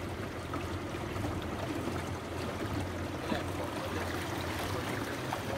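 Water lapping and trickling around a small boat moving through floodwater, over a steady low hum.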